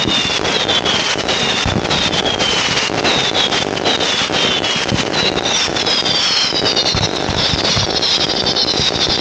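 Fireworks going off close by, a ground fountain and low bursting shells: continuous crackling and popping, with repeated falling whistles that grow more numerous and overlap in the second half.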